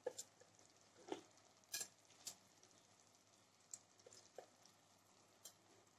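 Near silence with a few faint, irregular pops: chicken masala sizzling gently in a pressure cooker on low flame.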